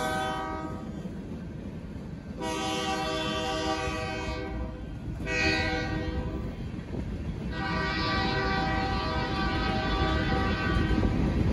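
BNSF freight locomotive's multi-note air horn sounding a series of long blasts for the grade crossing, the last one held for about three seconds, over the steady low rumble of the train's wheels on the rails as the hopper cars roll past.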